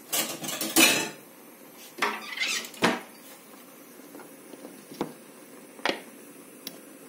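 Kitchen handling: a metal spoon and the plastic screw-on lid of a salt jar clattering against the wooden counter. A cluster of knocks and scrapes comes in the first second and another a couple of seconds in, followed by single sharp clicks as the lid comes off and is set down.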